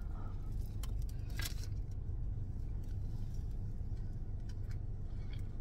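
Steady low hum of a car idling, heard inside the cabin, with a few faint clicks over it.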